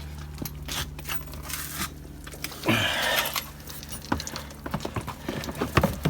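Clicks, knocks and light scraping of washer pump parts being handled, with one short hiss about three seconds in.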